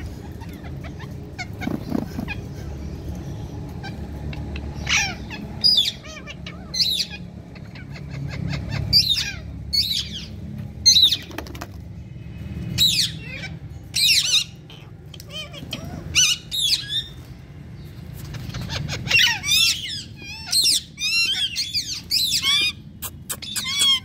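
Parrots calling: short, high-pitched chirps repeated about once a second from about five seconds in, becoming a dense run of chattering calls near the end, over a low rumble.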